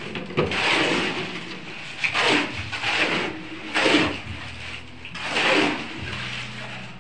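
Steel shovels scraping and scooping wet concrete mix off a cement floor, about five strokes, one every second or so, over a steady low hum.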